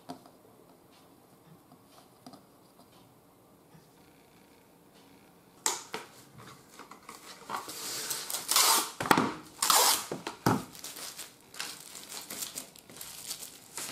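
Plastic cling film crinkling and crackling in quick irregular rustles as it is handled and stretched over a baking tray of shaped buns, starting about five and a half seconds in; before that it is near quiet.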